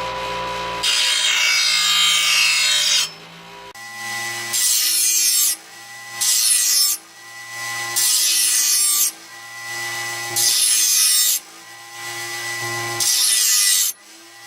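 Lawn mower blade being ground on a bench grinder's coarse wheel, pressed lightly and drawn all the way across in six grinding passes, the first about two seconds long and the rest about a second each. The grinder motor runs with a steady whine between passes.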